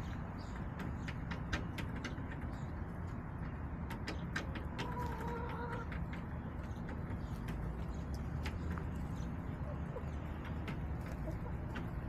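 Backyard hens: one drawn-out soft call about five seconds in, lasting about a second, amid scattered light ticks and taps, over a steady low rumble.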